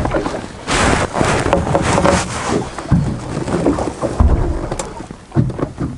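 Small waves slapping and splashing against the hull of a small fishing boat as it drifts, with wind buffeting the microphone in gusts and a few low thumps.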